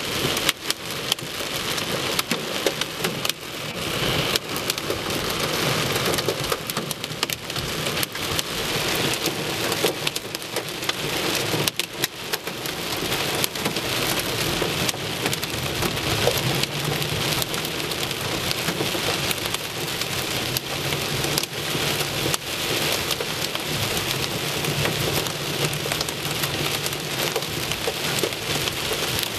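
Heavy rain and hail pelting a car's roof and windshield, heard from inside the car: a dense, steady hiss of rain shot through with many sharp clicks of hailstones striking.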